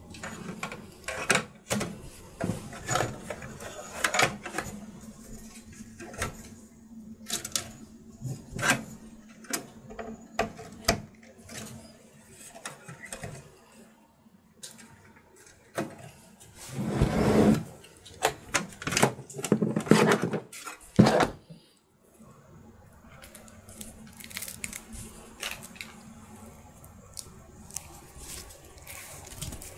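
Irregular clicks, taps and rattles of power supply cables and plastic connectors being handled and routed inside a small computer case, with a louder spell of knocks and rustling a little past the middle.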